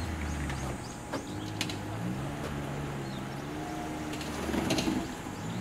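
Suzuki Jimny's engine running at low revs while crawling over a dirt mound. The pitch rises about two seconds in and the engine gets louder near the end as it pulls up the bank.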